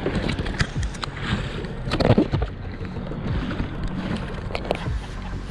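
Kayak paddling: splashes of paddle strokes and water sloshing against a plastic sit-on-top kayak hull, in irregular bursts, the loudest about two seconds in.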